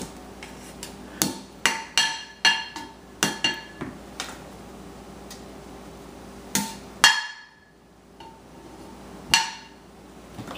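A hard object banged again and again on something that rings, each knock sharp with a short clinking ring. The knocks come irregularly: a quick run of them, then a few spaced-out harder ones.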